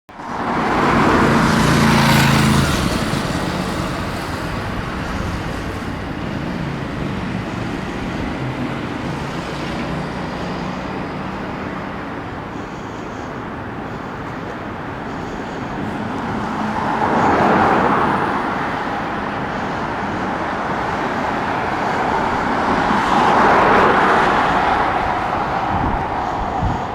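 Diesel engine of a DAF LF fire engine running loudly as it pulls away in the first few seconds, then steady road traffic, with vehicles passing by twice in the second half.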